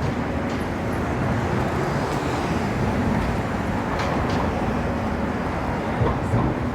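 Steady city traffic noise, a dense low rumble of vehicles on a busy Manhattan street, with a few faint knocks.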